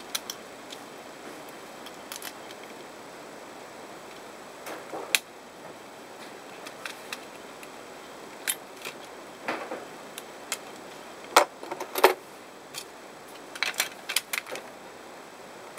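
Plastic clicks and knocks of a game controller being reassembled by hand, its shell pieces pressed together and a precision screwdriver working at its screws. The taps come irregularly, with two sharper clicks about two-thirds of the way through and a quick cluster near the end.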